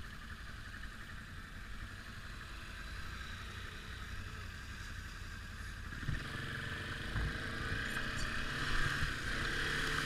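ATV engine running steadily as it rides a rough dirt trail. About six seconds in it gets louder, with a few knocks from the rough ground.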